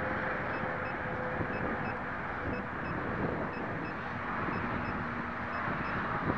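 Wind rushing over the microphone, with faint short high electronic beeps from an alarm beeper repeating about twice a second, and a faint steady hum from the small electric motor of the RC plane flying overhead.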